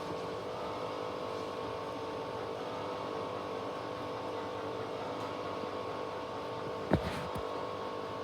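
Candy washing machine humming steadily at the end of its cycle, with several steady tones, after the final spin has slowed down; one sharp click about seven seconds in.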